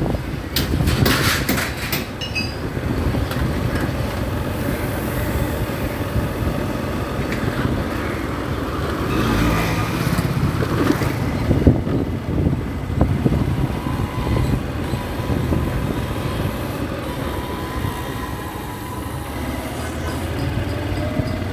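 Street traffic noise dominated by a steady low engine rumble, with a few sharp clicks about a second in and a faint rising engine whine over the last several seconds.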